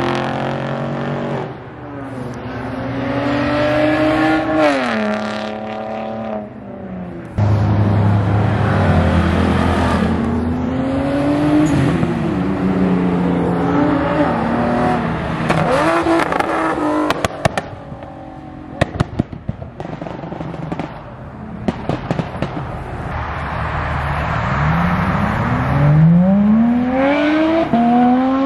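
Several cars accelerating hard away from a car show exit, their engines revving, with the pitch climbing and then dropping back again and again. About two thirds of the way through comes a quick string of sharp pops, and near the end another car revs up steeply.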